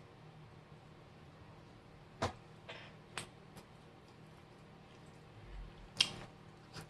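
Quiet eating sounds: a handful of sharp, separate mouth clicks and smacks while chewing, a second or so apart, the loudest about six seconds in, over a faint steady hum.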